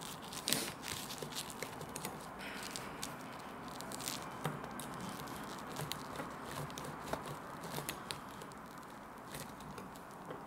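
Bamboo sushi rolling mat (makisu) squeezed and pressed by hand around a sushi roll, its slats giving many small irregular clicks and rustles.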